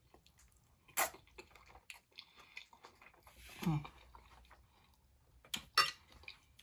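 A person chewing a soft, wet mouthful of green beans and mashed potatoes in gravy close to the microphone. There is a sharp mouth smack about a second in, a short falling hummed "mmm" about halfway through, and two more smacks near the end.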